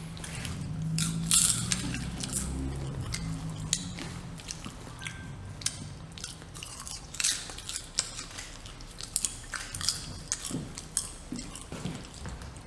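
Irregular crunching and crackling clicks, close and dry, with a low hum under them for the first few seconds.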